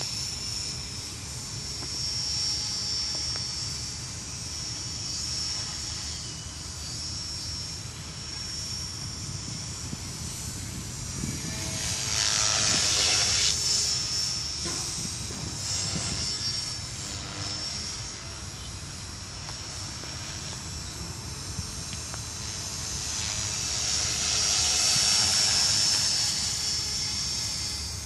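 Align T-Rex 450 Pro electric RC helicopter in flight: a steady high-pitched whine from its brushless motor and rotor head, with the speed governed by the ESC. The sound swells louder twice, about twelve seconds in and again near the end.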